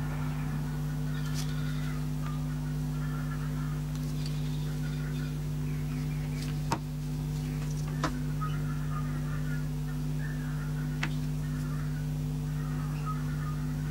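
A steady low hum with a few short, sharp clicks, about seven, eight and eleven seconds in.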